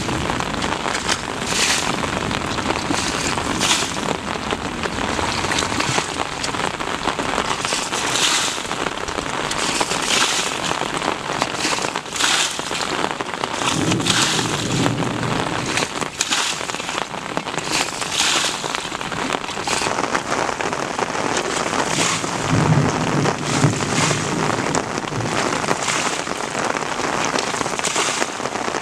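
Muddy water being bailed with a plastic bucket: each scoop flung out in a splash, about one every two seconds, over a steady wash of sloshing water.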